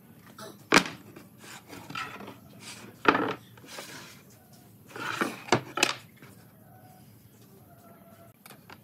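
Pine boards being set down on a wooden tabletop: sharp wood-on-wood knocks, the loudest about a second in, one about three seconds in and a few more near the middle. Between the knocks, boards scrape and slide across the surface.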